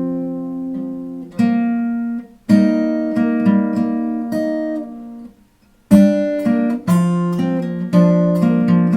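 Acoustic guitar with a capo at the third fret, fingerpicked: pairs of strings plucked together by thumb and middle finger, then a single middle string, each left to ring and fade. The playing stops briefly past the halfway mark, then picks up again with a quicker, steady run of arpeggiated notes.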